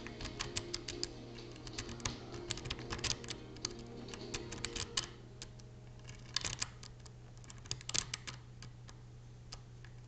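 Steel lock pick and tension wrench clicking and scraping on the pins inside a Mauer euro-profile cylinder lock during picking: many quick, irregular metallic clicks, busiest in the first half, with bursts again in the middle and about eight seconds in.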